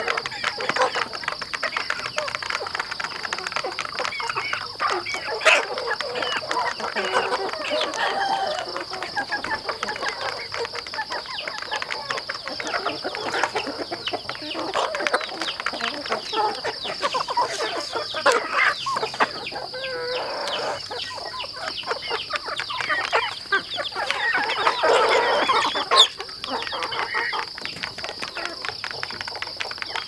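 A flock of chickens clucking as they peck feed from a plastic pipe trough, with dense rapid tapping of beaks throughout. One longer, louder call stands out near the end.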